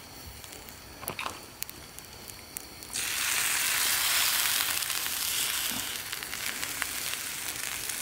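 Soy sauce sizzling on a hot iron griddle as it is put on grilling rice balls (yaki onigiri). The sizzle starts suddenly about three seconds in and keeps going. Before it there are only a few faint crackles.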